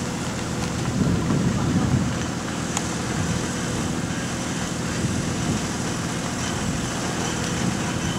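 An engine running steadily at an even pitch.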